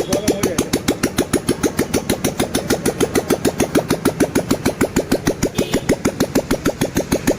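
Royal Enfield G2 Bullet's single-cylinder four-stroke engine idling with its steady, even thump at roughly six beats a second, running on freshly changed piston rings.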